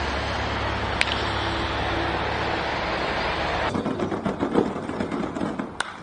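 Baseball bat cracking against a pitched ball near the end, over a steady rushing noise that turns rougher and fluttering a little past halfway. Another sharp crack about a second in.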